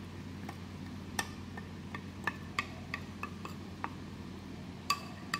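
A spoon clinking against the bowl and pot while paste is scooped into a simmering curry: irregular light clinks, each with a brief ring, roughly two a second, over a low steady hum.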